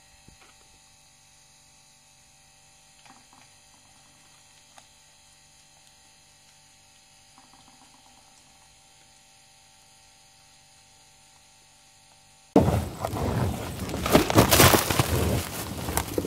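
A steady low electrical hum with a few faint taps. About three-quarters of the way in it switches abruptly to loud, gusting wind noise on the microphone.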